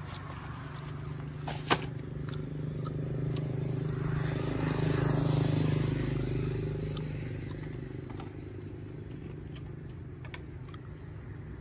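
A motor vehicle passing on the road: its engine hum swells to a peak about halfway through and fades away. A single sharp click comes a couple of seconds in, with a few small ticks near the end.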